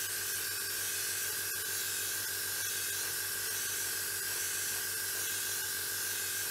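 Steady hiss of paint being sprayed onto a model car body, over a low steady hum.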